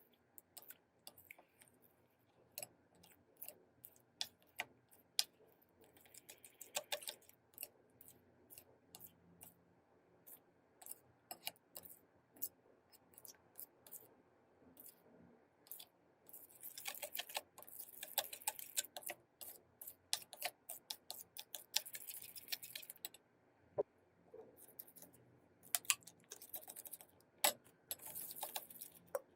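Slime being squeezed and stretched by hand, giving irregular little pops and clicks, with longer runs of wet crackling about halfway through and again near the end.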